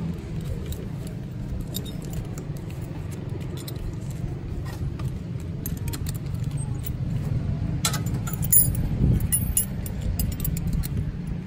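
Metal latch plates and cam-lock buckle of a racing five-point harness clinking and clicking as they are fitted together, loudest with a few ringing metallic clicks about eight to nine seconds in. A steady low rumble runs underneath.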